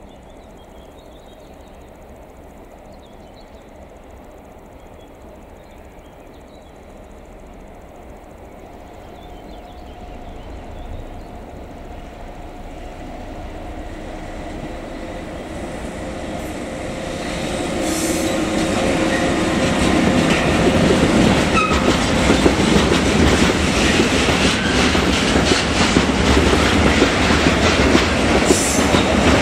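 Freight train approaching, growing steadily louder over about twenty seconds, then rolling past close by with loud wheel-on-rail noise.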